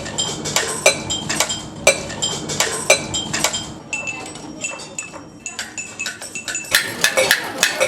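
Quick, irregular metallic clinks, a couple of strikes a second, each ringing briefly at a high pitch, over a faint low hum.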